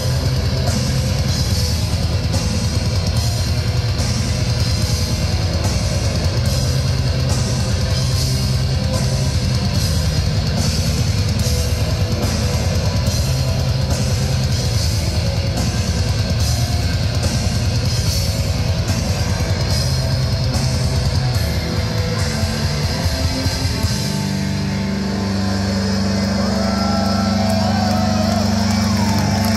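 Black metal band playing live: distorted guitars over dense, driving drums and cymbals. The drums drop out about three-quarters of the way through, leaving a held low droning chord with a few sliding higher tones over it.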